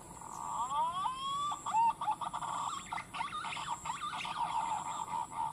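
Green pigeon (punai) calling: a run of clear whistles that opens with several rising glides, then goes on as wavering, warbling notes.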